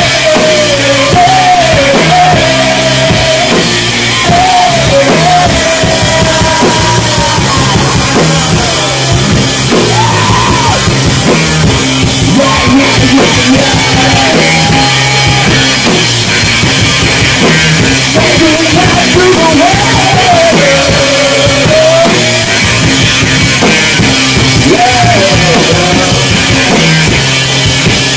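Live rock band playing loud: electric guitars over a full drum kit, with a melody line bending up and down in pitch above them, without a break.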